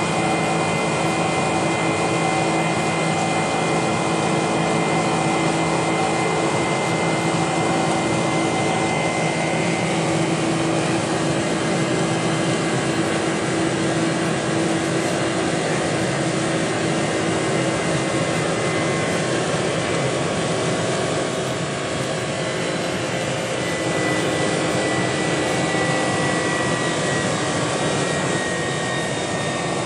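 Cabin sound of a Boeing 747-400 climbing out, heard from a seat behind the wing: its GE CF6-80C2 turbofans give a steady rushing roar with several steady engine tones running through it. One of the higher tones drifts slightly lower near the end, and the roar eases a little for a moment partway through.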